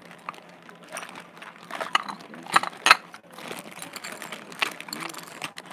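Small hard objects clicking and knocking irregularly as they are handled and sorted by hand, with two sharper clacks about two and a half and three seconds in.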